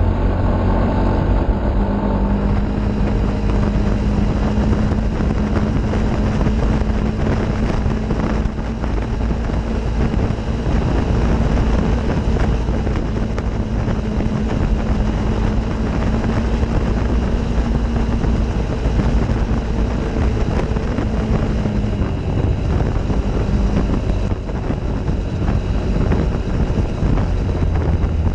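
Off-road vehicle engine running steadily under way, recorded from the vehicle itself, with wind noise on the microphone. The engine note holds steady for most of the time and eases off about three quarters of the way through.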